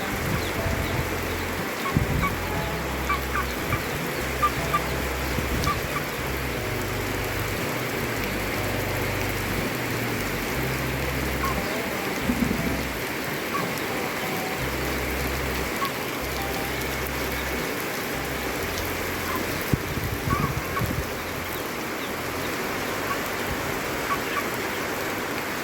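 Steady rain falling, with chickens clucking here and there.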